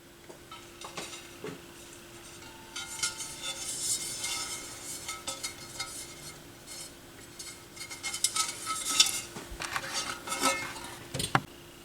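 Small metal tools and parts being handled: irregular clinks, taps and scrapes in bursts, over a faint steady hum.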